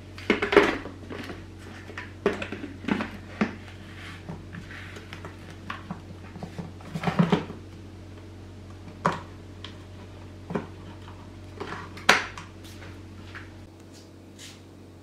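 Plastic lid being fitted onto the steel jug of a Cecotec Mambo 10070 kitchen robot and twisted to lock: a scatter of plastic knocks and clicks, the sharpest about twelve seconds in.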